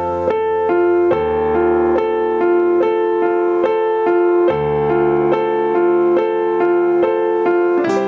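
Piano intro of a song: a keyboard plays a steady figure of notes, about two a second, over low bass notes that come in about a second in.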